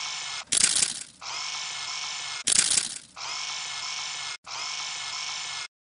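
Camera sound effects: a steady mechanical whirr, like a film-winding motor, that stops and restarts several times, broken twice by a louder clattering shutter-like burst about half a second long, and cutting off shortly before the end.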